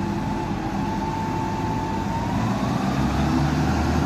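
A heavy vehicle's engine running steadily, its pitch rising a little about two and a half seconds in as it picks up revs.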